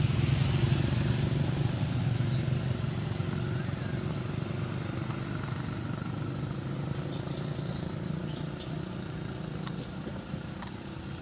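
Motor vehicle engine running steadily and slowly fading away, with a few faint short high chirps over it.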